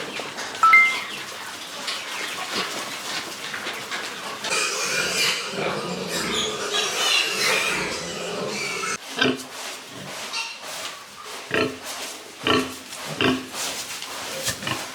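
Pigs grunting: a noisy stretch of animal sounds, then a run of short, separate grunts in the second half. A short high chime sounds about a second in.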